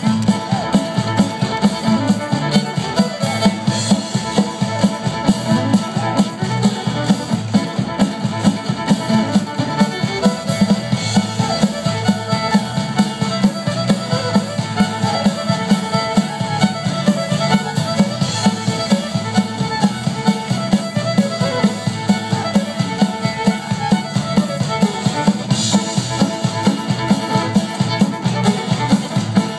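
Fiddle dance tune with a steady drum beat, played loud over a PA for a troupe of square dancers.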